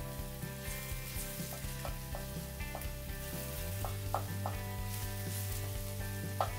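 Eggs and onion masala sizzling in a cast-iron skillet as a wooden spatula stirs and breaks them up, with scattered light taps and scrapes of the spatula against the pan.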